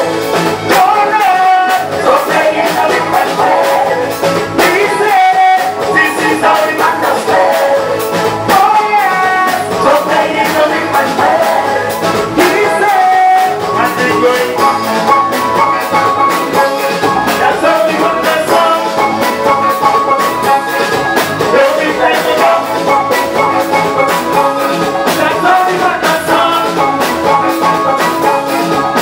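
A live soca band playing continuously.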